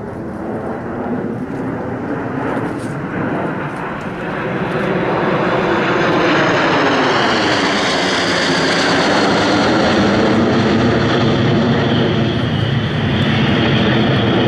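Formation of six Aero L-39 Albatros jet trainers flying overhead, their turbofan engines making a steady jet roar. The roar grows louder about four seconds in and stays loud, with a swirling, sweeping quality as the formation passes over.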